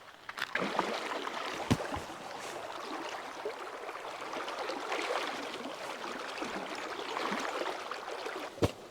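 Rustling and crinkling of nylon camping gear being handled, uneven in loudness, with a sharp knock about two seconds in and another near the end.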